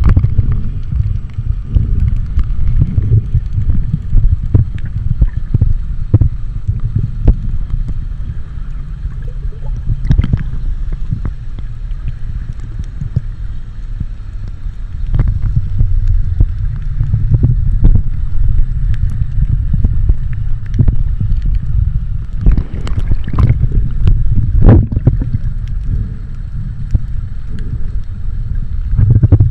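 Muffled water movement and a low rumble against the camera's microphone, with many scattered small clicks and knocks, as from a camera filming in or at the surface of the sea.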